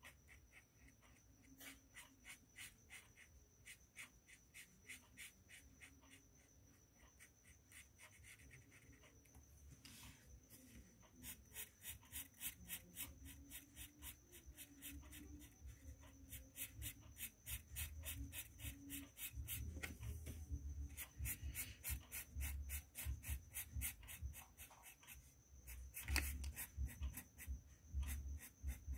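Red colouring pen scribbling on a colouring-book page in quick back-and-forth strokes, several a second, faint at first and louder from about a third of the way in. A faint steady high whine runs underneath.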